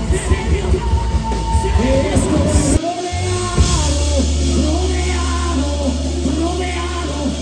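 Live worship band playing: voices singing over a steady low beat. About three seconds in, the beat drops out, and a held bass note carries on under the singing.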